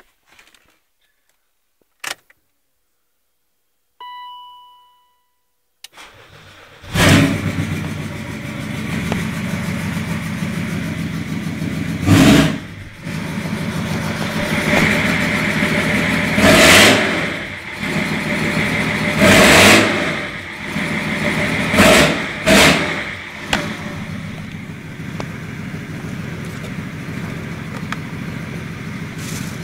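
BMW E39's M57 straight-six diesel engine being started: a click and a short beep, then the starter and the engine catching about seven seconds in. It idles with a diesel clatter and is blipped about five times between roughly twelve and twenty-three seconds in, then settles back to a steady idle.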